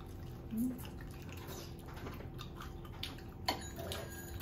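Quiet eating at a table: faint chewing of fried chicken and small clicks of chopsticks and dishes, the sharpest click about three and a half seconds in, over a faint steady hum.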